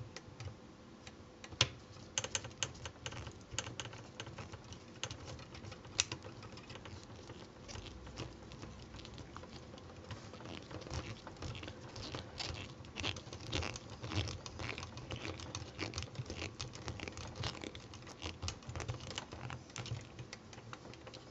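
Metal screwdriver turning a small screw into a plastic toy figure's leg, with faint irregular clicks and ticks from the screw and from plastic parts being handled.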